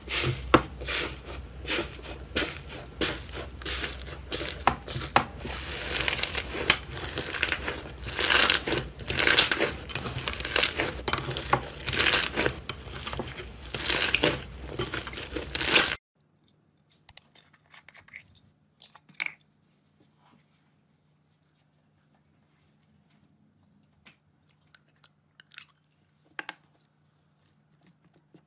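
Iceberg slime with a dried crust crunching and crackling under pressing hands, a dense run of crisp crackles. After about sixteen seconds it cuts off abruptly to near silence with only a few faint clicks.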